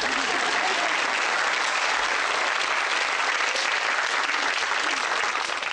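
Sitcom studio audience applauding as a character exits, dense and steady, dying away at the very end.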